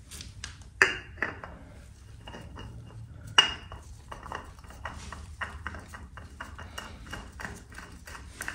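Metal oil filter canister being offered up and screwed by hand onto a motorcycle engine's filter mount: a string of small metallic clicks and clinks, with two louder knocks about a second and three and a half seconds in that ring briefly.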